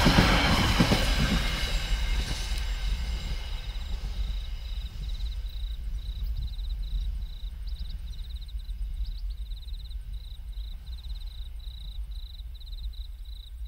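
Empty container flat wagons of a freight train rolling over the rails, the wheel and rail noise fading over the first few seconds as the train moves away, leaving a low rumble. From about four seconds in, an insect chirps in rapid, regularly pulsed trills.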